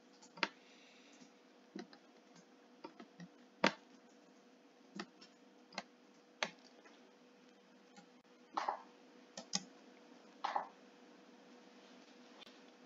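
Faint, irregular clicks and taps of a computer mouse and keyboard, about a dozen scattered sharp clicks, over a low steady electrical hum.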